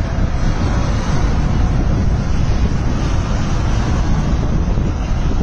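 Strong wind buffeting a phone's microphone: a loud, steady rushing noise, heaviest in the low end.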